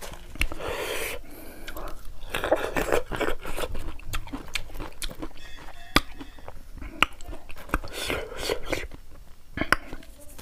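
Chewing and crunching raw green mango slices dipped in salt and king chilli, with several sharp clicks and some breathy noise in between.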